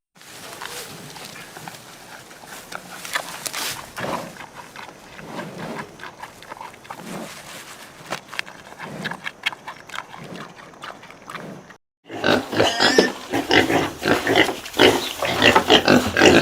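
Pigs grunting and squealing. A quieter stretch of scattered grunts gives way, after a brief break about twelve seconds in, to louder, rapid grunting.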